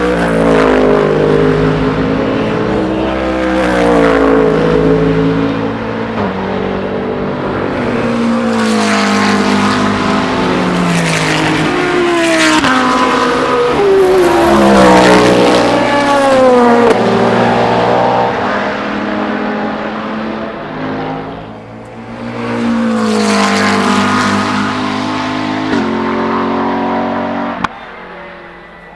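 Race cars passing one after another at speed, their engines revving, with the pitch climbing through the gears and dropping away as each car goes by. The sound eases briefly about two-thirds of the way through, then falls off sharply near the end.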